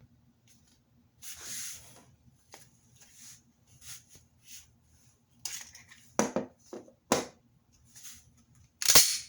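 Handling of a Glock 45 pistol: soft rustling with a series of sharp mechanical clicks, the loudest clack coming near the end.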